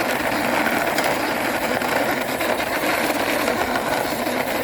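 Plastic toy army tank pushed along by hand, its wheels and gearing making a steady whirring rattle.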